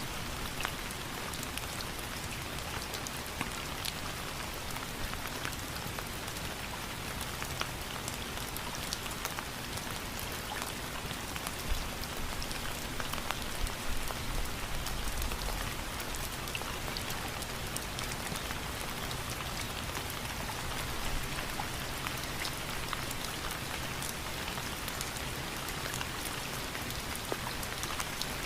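Steady rain falling on a surface, an even hiss with many individual drops pattering through it.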